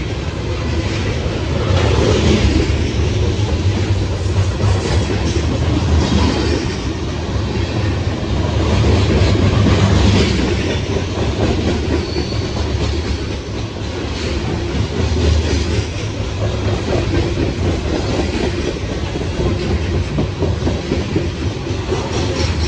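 Loaded CSX coal train's hopper cars rolling past close by: a steady heavy rumble with the wheels clicking and clacking over the track.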